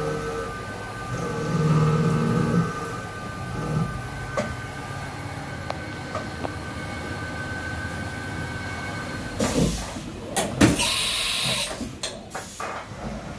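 Haas VF-3 vertical machining center running, with a steady spindle whine and a low hum from its axis moves. From about nine and a half seconds in, its side-mount tool changer makes a tool change: several clunks of the double arm and a hiss of air lasting about a second as the tool is released.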